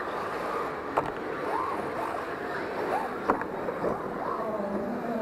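Electric RC drift cars' motors whining, rising and falling in pitch with the throttle, over a steady hiss, with two sharp knocks, one about a second in and one a little past three seconds.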